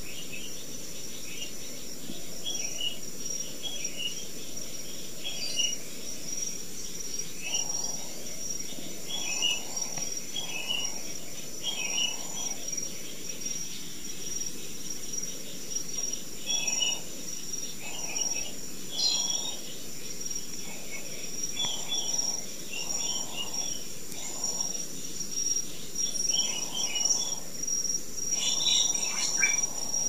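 A steady high-pitched insect drone from crickets or cicadas, with scattered short bird chirps over it. From about eight seconds in, a soft low rustle recurs roughly once a second.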